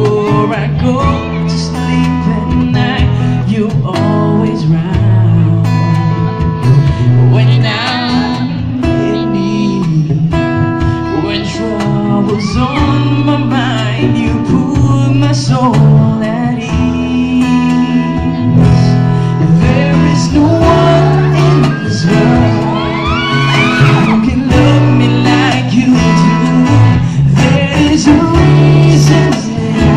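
Live acoustic band playing a slow pop ballad on acoustic guitars, bass guitar and cajon, with a singer's voice bending through sustained notes over it.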